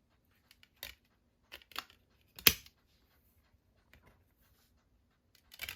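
A few short clicks and taps from Blu-ray discs and a cardboard digipak being handled. The loudest comes about two and a half seconds in, with another near the end.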